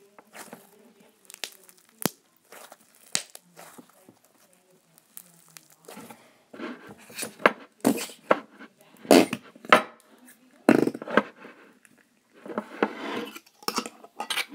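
Fluffy slime squeezed and kneaded by hand, giving soft crackles and pops, then pushed down into a glass mason jar, with louder squelches and taps against the glass in the second half.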